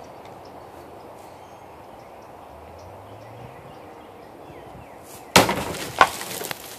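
A large chopper knife blade strikes and slices through a liquid-filled plastic bottle a little past five seconds in: a sudden sharp whack with splashing spatter, and a second sharp crack about half a second later.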